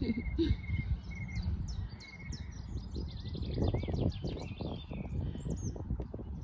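Several wild birds singing and chirping, with short whistled notes and a fast trill in the middle, over a steady low outdoor rumble.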